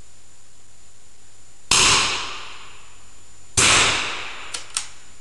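.22 smallbore target rifle shots: two sharp cracks about two seconds apart, each ringing out in the small indoor range, followed by two faint clicks near the end.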